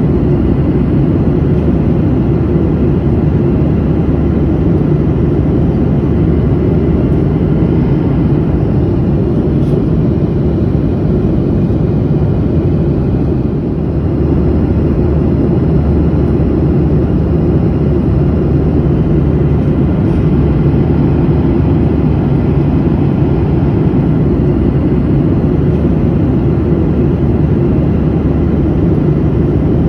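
Airliner cabin noise in flight: a steady low roar of engines and rushing air, with a faint steady hum under it. It dips slightly for a moment about halfway through.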